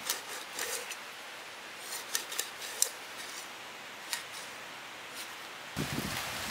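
Cleaver blade scoring the scaly skin of a whole fish on a wooden chopping stump: a scattered series of short, crisp snicks, the loudest about two to three seconds in. A louder rustling comes in near the end.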